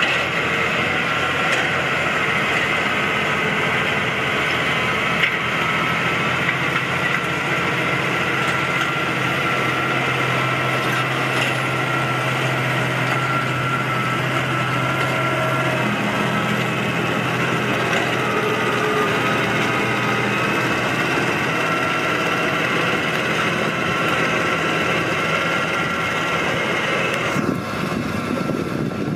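New Holland T7.220 tractor's six-cylinder diesel engine running steadily under load, pulling a Claas Cargos 9500 loader wagon as it picks up and chops grass. The engine note shifts once about halfway, and the sound eases off a little near the end.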